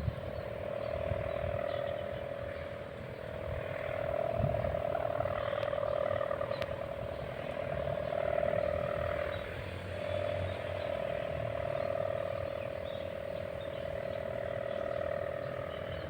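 Kite sendaren humming in the wind: one steady, rasping drone that sounds like snoring, swelling and fading as the wind rises and drops.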